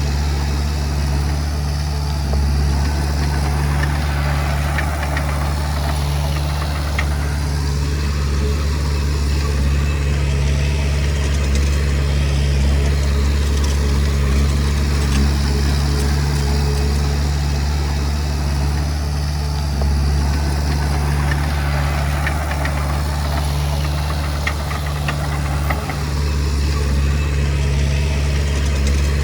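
Komatsu D20P crawler bulldozer's diesel engine running steadily with a low, even note, with faint clicks and clanks over it.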